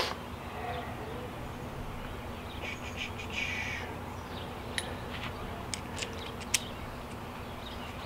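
A brief rasping scrape, then a few sharp metal clicks, as a trimmer rack's clamp block and bolt are worked loose by hand, over a steady low background hum.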